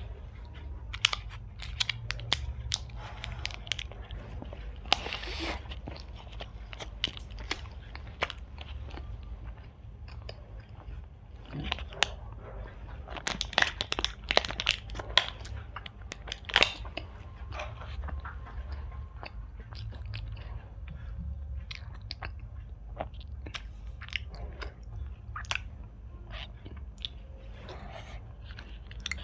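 Close-up chewing and biting of Indian sweets, with many short, irregular mouth clicks and smacks, busiest in the middle stretch. A steady low hum lies underneath.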